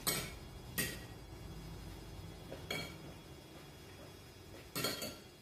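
Metal forks and spoons clinking against ceramic plates while eating: five sharp clinks spread over a few seconds, some with a brief ring.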